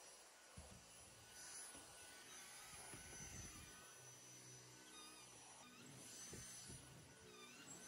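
Near silence: faint room tone with a few soft, low knocks.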